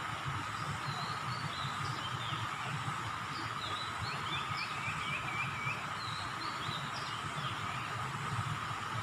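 Outdoor ambience: small birds chirping in short runs on and off, over a steady high drone and a low rumble.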